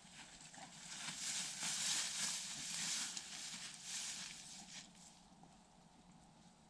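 Crackly rustling of dry grass and leaves that swells for about four seconds and then fades.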